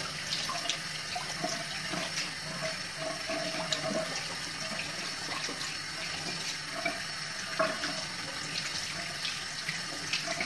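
Water running steadily from a bathroom tap into a sink, with irregular small splashes as cupped hands scoop water to rinse foaming facial cleanser off the face.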